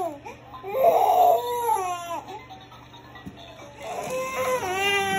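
A baby fussing and crying: a short cry about a second in that falls away, then a longer held wail starting near the end.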